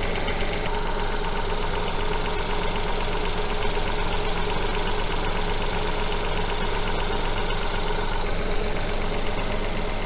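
Small three-cylinder petrol engine idling steadily, with a fast, even ticking over its running.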